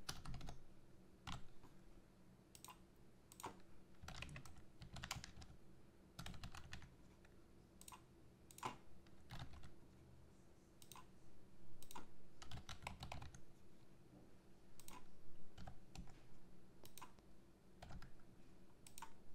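Computer keyboard typing, faint, with keystrokes coming in short irregular runs and pauses between them.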